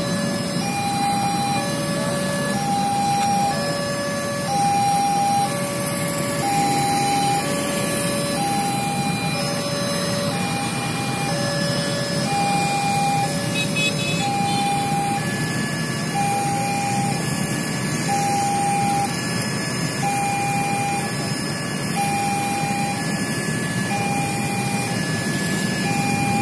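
Railway level-crossing warning alarm sounding a repeating two-tone signal, high and low alternating about one tone a second: the crossing is closed for an approaching train. Road-traffic noise runs underneath.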